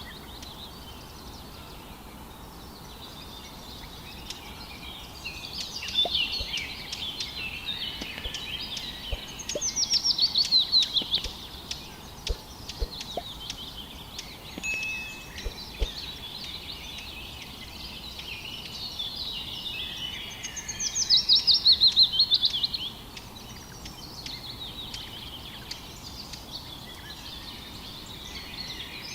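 Forest birdsong: a chorus of small birds chirping. Twice a louder rapid trill cuts in, each falling in pitch over about two seconds, the two about ten seconds apart.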